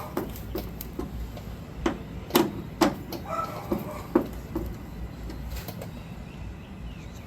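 Scattered clicks and knocks of plastic turn-signal lamp parts being handled and fitted back together by hand. The sharpest taps come about two and a half to three seconds in.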